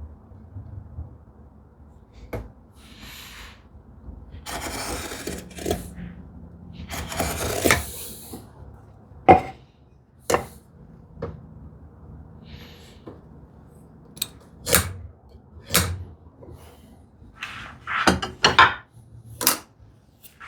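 Hand tools and wooden drawer parts handled on a workbench. Two longer scrapes come about five and seven seconds in, followed by a series of sharp knocks and clicks as pieces are set down and shifted, with a quick cluster near the end.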